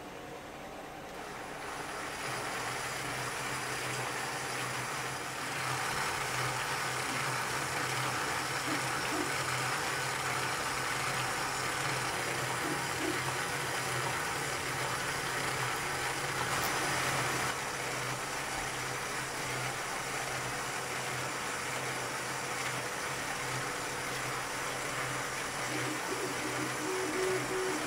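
Motor-driven 3D-printed plastic model of a Ford flathead V8 running steadily: a low hum with a whirring, rattling mechanism over it, louder from about five seconds in.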